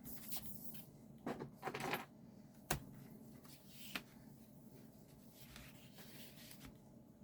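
Light handling noises from the laptop: a short rustle or scrape, then a sharp click and a smaller click a little over a second later, over quiet room noise.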